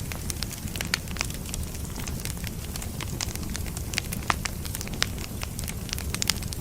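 Firewood burning: a steady low rumble with many irregular sharp crackles and pops, a few of them louder.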